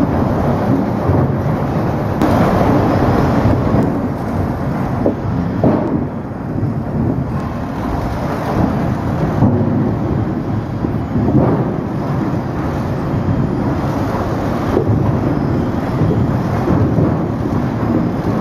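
Sawmill log singulator and its log-handling machinery running: a steady low mechanical din with a few knocks and clatters scattered through it.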